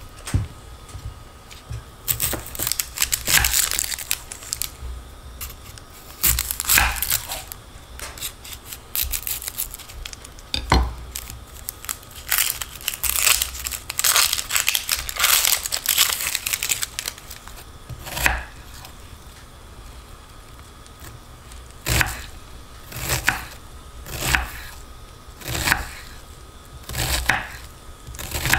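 Crinkling and tearing sounds of food preparation, then a knife chopping down onto a cutting board in single, evenly spaced strokes a little over a second apart.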